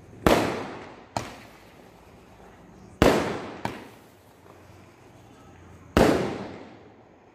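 Aerial fireworks going off: three loud bangs about three seconds apart, each fading out over about a second, with two fainter bangs in between.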